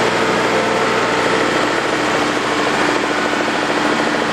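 Thermoplastic road-marking machine running steadily as it lays a solid white line of hot thermoplastic, a steady hiss over a low machine hum.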